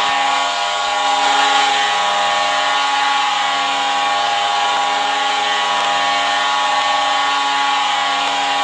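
Vancouver Canucks' arena goal horn sounding one long, steady, loud chord that signals a Canucks goal.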